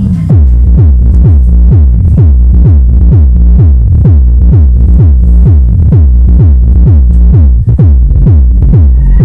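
Loud electronic dance music with a heavy, fast kick drum, about three beats a second, played through a subwoofer driven by a D900 mini amplifier in a bass test.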